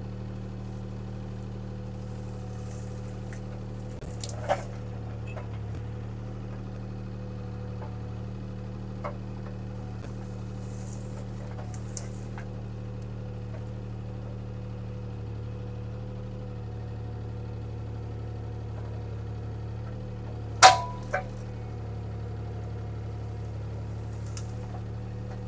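Bobcat T300 skid steer's diesel engine running steadily while it works brush, with a few sharp knocks, the loudest about twenty seconds in followed by a smaller one.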